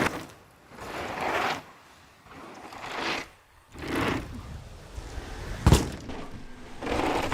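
Downhill mountain bike on a run: repeated rushes of tyre and wind noise, each about a second long, and one sharp knock a little past halfway through.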